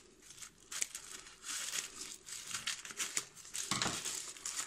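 Thin black plastic packing bag crinkling and tearing as it is cut open with scissors and pulled off a small box: irregular crackles, with a louder burst near the end.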